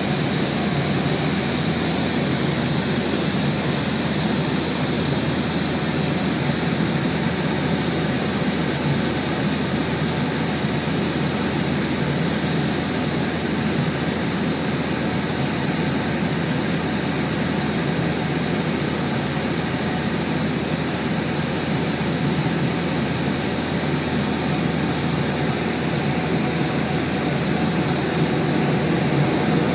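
Steady drone of aircraft engines heard from inside the cabin: an unchanging hum with a faint high whine.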